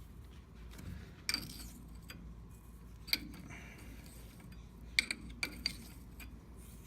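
Tools and bolt hardware clinking: about five sharp metallic taps, one to two seconds apart, as the shock mount bolt is worked loose with a wrench.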